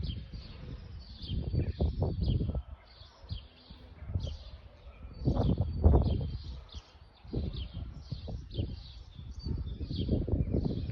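Small birds chirping rapidly and continuously, many short high calls overlapping. Low rumbling gusts of noise swell up three times and then die away.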